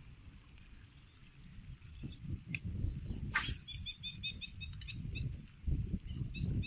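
Wind rumbling on the microphone beside open floodwater. About three and a half seconds in there is a brief sharp swish, followed at once by a quick run of short high chirping notes lasting about a second.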